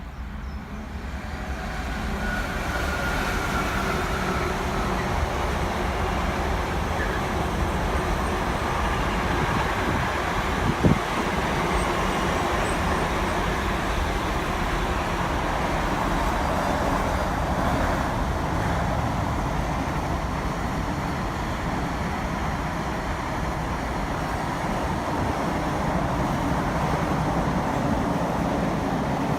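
A train running past, its noise building over the first couple of seconds and then holding steady. There is a short sharp knock about eleven seconds in.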